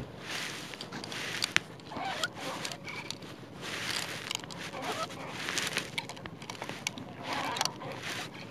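Fishing handline being hauled in by hand close to the microphone, with repeated rustling and scraping strokes and scattered small clicks.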